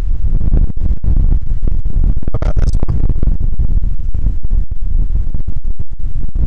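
Strong wind buffeting the microphone: a loud, uneven low rumble with many brief dropouts.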